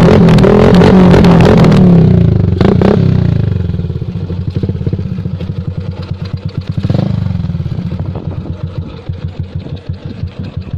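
Yamaha Sniper 135's single-cylinder four-stroke engine breathing through a loud open aftermarket exhaust pipe, revved hard for about two seconds, then falling back to a pulsing idle with a short throttle blip a little later and another past the middle.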